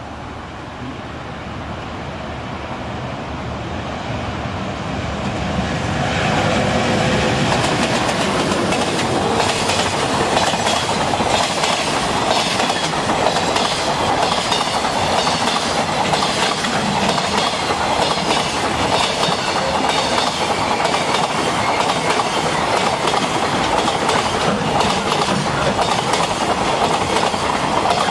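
EH200 electric locomotive hauling a container freight train past, growing louder over the first six seconds as it approaches, then running by steadily and loudly with the wagons' wheels clicking over the rail joints.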